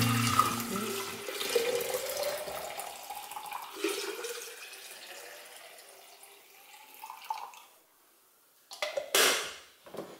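Cooled black tea poured from a stainless steel saucepan into a pitcher and a bottle, the stream splashing and gurgling, its pitch rising a little as the vessel fills. Near the end, a short loud knock or clatter.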